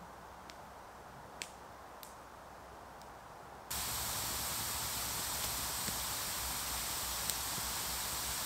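Wood campfire burning: a few sharp crackle pops over quiet woodland, then from about four seconds in, heard up close, a steady hiss of burning logs with occasional crackles.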